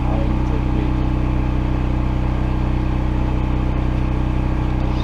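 The gasoline engine of a Hobart Champion 145 engine-drive welder/generator running at a steady speed, with an even hum that does not change.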